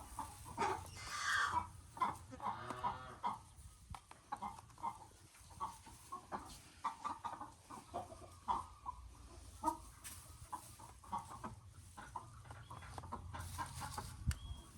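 Chickens clucking: many short, repeated clucks throughout, with a few longer, louder calls in the first few seconds.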